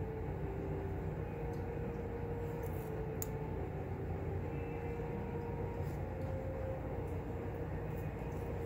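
Steady low background hum of the room with a faint steady tone running through it, and a few faint light clicks, typical of a figure being handled.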